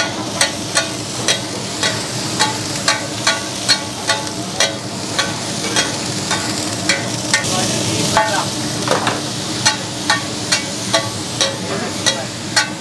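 A long steel spatula clanks and scrapes against a large iron tawa about twice a second, stirring onion, tomato and garlic and chilli pastes as they fry in oil, over a steady sizzle.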